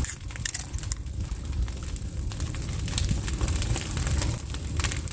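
Burning brush pile crackling and popping, many sharp snaps over a steady low rumble.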